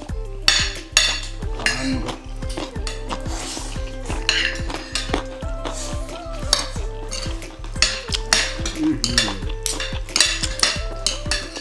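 Metal chopsticks and spoons clinking and scraping against ceramic plates while eating noodles, many quick small strikes throughout.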